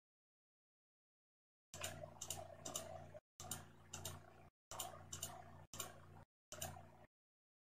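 Computer mouse clicking repeatedly as checkboxes are unticked one after another, starting about two seconds in. Under the clicks a low electrical hum from the microphone cuts in and out.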